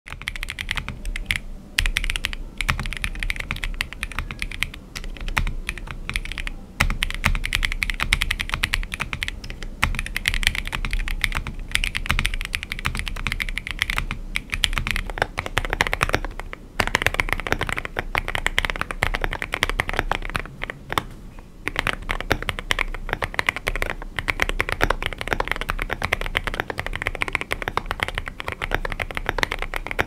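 Continuous fast typing on a Monsgeek M1W aluminium mechanical keyboard with Wuque Studio Morandi linear switches: a dense run of key strikes, broken by a few brief pauses.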